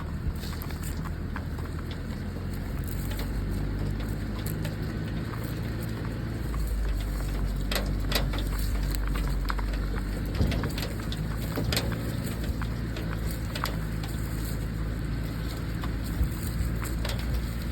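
Wind buffeting the microphone as a steady low rumble that grows stronger partway through, with scattered sharp clicks and crackles.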